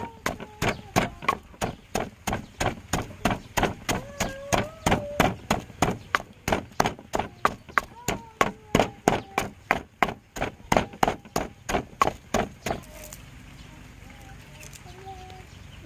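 Wooden pestle pounding garlic, chillies and herbs in a mortar, with steady strokes about three a second. The pounding stops about three seconds before the end.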